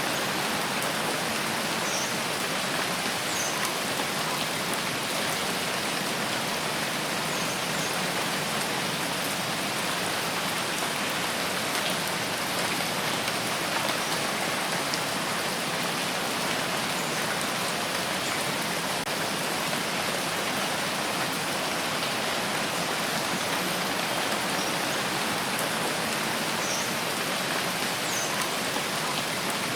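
Steady rain falling and pattering on surfaces, an even continuous hiss with no change in intensity.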